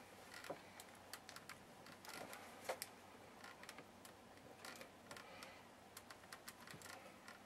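Faint, irregular clicks and scrapes of a screwdriver bit twisting in a screw in a metal plate; the screw head is stripped.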